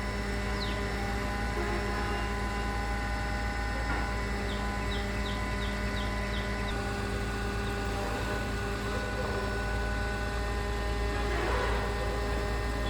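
Concrete pump's engine running steadily, a constant low rumble with a hum of fixed pitches over it. A quick run of short high chirps about five seconds in.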